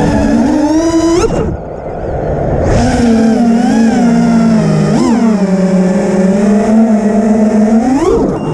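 FPV freestyle quadcopter's four brushless motors (2207, 2550 kV, on 5-inch tri-blade props) whining, the pitch swooping up and down with the throttle. A sharp rising punch about a second in is followed by a brief throttle-off dip, a quick blip near the middle and another rise near the end.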